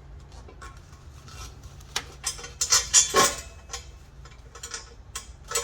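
Stainless steel tubular turbo manifold clinking and scraping against the engine block and studs as it is test-fitted, with a burst of louder metal clatter about two to three seconds in and another clink near the end.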